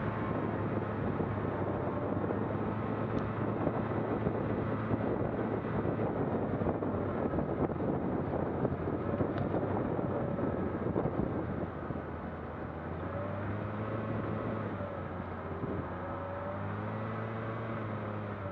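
Vehicle engine running under way with a steady low hum and a rushing noise; the rushing eases about two-thirds of the way in and the engine note shifts as it changes speed.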